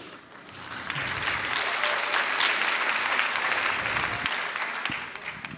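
Lecture-hall audience applauding, swelling up about half a second in and dying away near the end.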